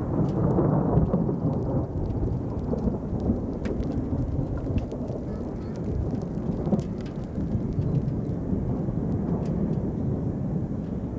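Thunderstorm: a continuous low rumble of thunder, strongest in the first second or two, with scattered faint ticks.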